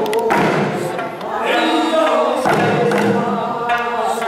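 Traditional Okinawan eisa song sung over a microphone. Paarankuu, small hand drums, are struck with sticks in time, with a few sharp strikes near the start and near the end.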